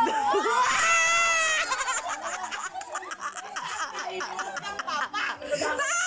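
Several people laughing and shrieking: a high-pitched shriek about a second in, then rapid, choppy bursts of laughter, with a rising squeal near the end.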